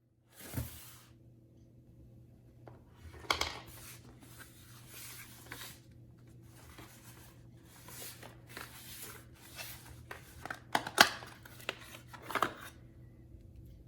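Cardboard box and packaging being handled and slid open: rubbing and scraping with a few sharper knocks, the loudest about eleven seconds in.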